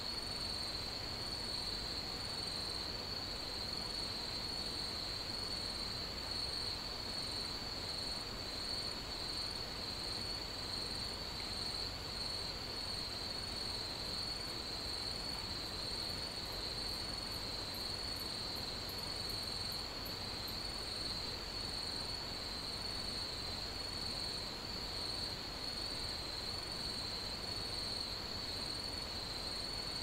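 Field crickets and other grass insects trilling steadily in a continuous chorus over an even hiss. About halfway through, a series of fine, high ticks from another insect joins in for several seconds.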